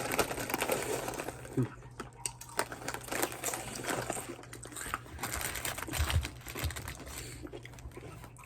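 Close-up eating sounds: chewing with small irregular clicks and crackles of mouth and food. There is a brief vocal murmur about a second and a half in.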